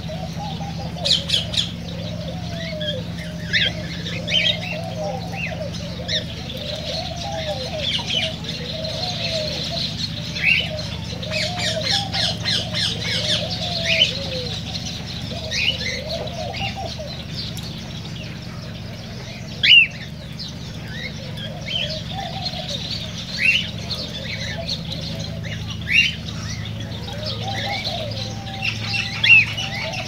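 A flock of cockatiels calling in an aviary: repeated sharp chirps and short squawks, the loudest coming a few seconds apart in the second half. Underneath runs continuous lower warbling chatter and a steady low hum.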